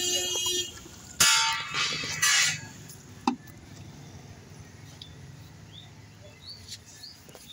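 A tyre on a steel wheel being handled on concrete: a few knocks and clanks in the first half, the sharpest a little over three seconds in, then quieter with a few bird chirps over a low steady hum.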